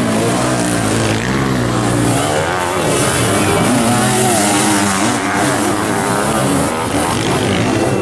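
Several sidecarcross outfits racing through a dirt-track corner, their motocross engines revving up and down over one another, the pitch rising and falling repeatedly as the throttles open and close.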